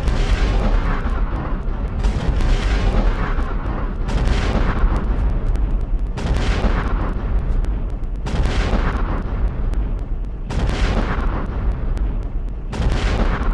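Rifle shots slowed down into deep booms, about one every two seconds, each with a long fading tail over a low rumble.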